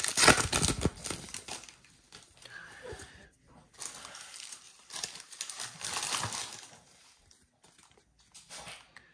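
Plastic wrapper of a trading-card pack crinkling as it is torn open and handled. The crinkling comes in several bursts, loudest in the first second or so, then weaker bursts fading out near the end.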